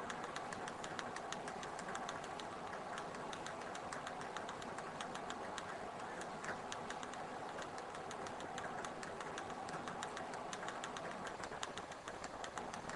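Fingertips tapping rapidly on a Pocket PC's plastic touchscreen: fast, uneven ticks, several a second, over a steady background hum.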